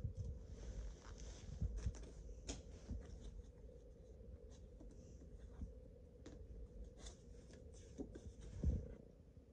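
Faint handling noise: light, scattered clicks and rustles, with a low steady hum underneath.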